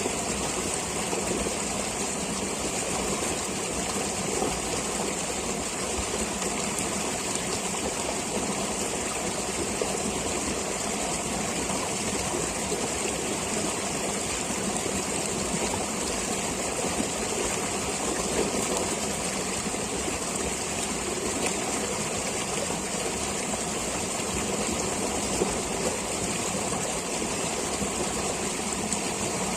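A stream of water flowing with a steady rush.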